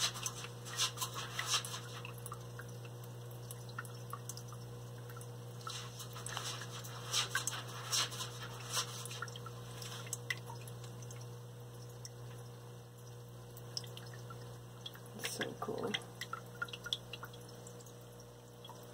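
Water dripping and trickling from a rock waterfall filter in a water-bottomed enclosure, as scattered light drips over a steady low hum. There is a brief louder noise about fifteen seconds in.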